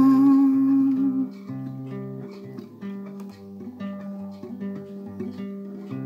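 Closing bars of a slow hymn: a held final sung note ends about a second in, giving way to a quieter run of plucked guitar notes over low, sustained bass notes.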